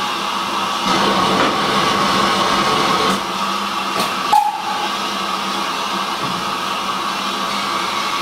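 Steady steam hiss from the standing LSWR Urie S15 4-6-0 steam locomotive, a little louder for a couple of seconds. About three to four and a half seconds in come a few sharp clanks as the lower-quadrant semaphore signal arm is pulled off to clear.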